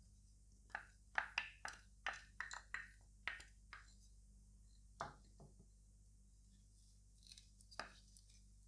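Wooden spoon tapping and clicking against a small glass bowl as coconut oil and flaxseed gel are scraped out of it: a quick run of about a dozen taps in the first few seconds, then a few single taps.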